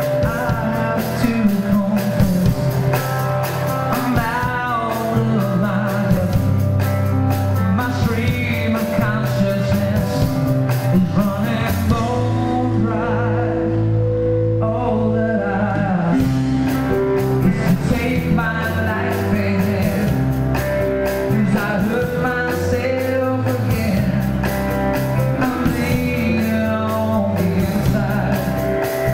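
Live rock band playing, picked up by a camcorder's microphone: a male lead vocal over electric and acoustic guitars and a drum kit.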